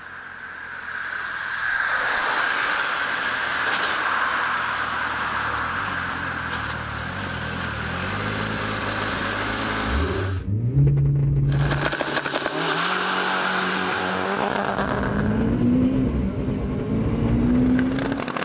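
The 1.8 turbo engine of a VW Golf II drag car, first a steady rushing noise. About halfway through it changes suddenly to hard revving, and the engine pitch rises several times in a row as it accelerates through the gears.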